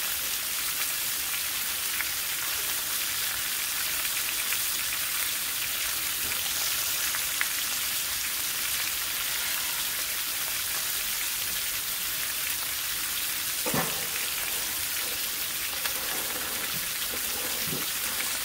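Beef roast searing in hot grease in a skillet: a steady sizzle with scattered pops and crackles, one louder pop about three-quarters of the way through.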